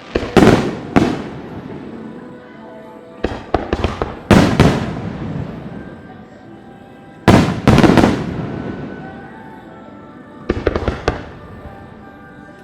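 Aerial fireworks bursting overhead: loud booms and sharp cracks in groups of two or three, about every three seconds, each trailing off in a long echo.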